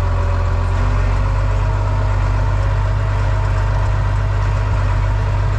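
New Holland T7 165 S tractor engine idling steadily, a deep, even hum.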